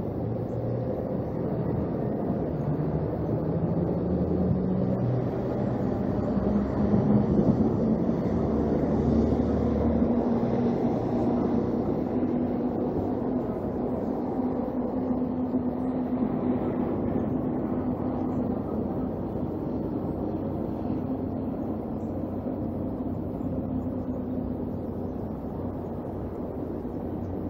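Low steady rumble of a distant engine with a held hum, swelling to its loudest about a third of the way in and slowly easing off.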